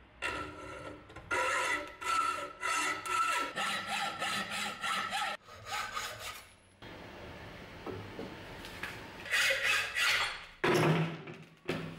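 Hacksaw cutting through a piece clamped in a bench vise: quick back-and-forth rasping strokes with a ringing note, a short pause a little past halfway, then harder strokes near the end.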